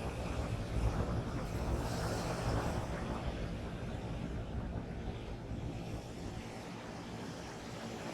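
Surf washing on the beach with wind buffeting the microphone, a steady rumbling hiss that swells in the first few seconds and eases a little after.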